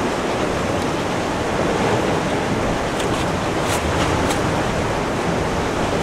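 Steady wash of ocean surf on a rocky volcanic shore, with a few faint clicks about three to four seconds in.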